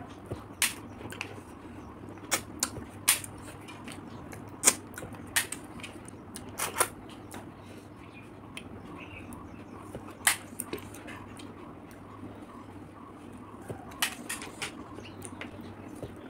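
Close-up mouth sounds of eating cooked river snails: irregular sharp smacks, sucks and clicks as the snail meat is sucked and chewed, over a faint steady hum.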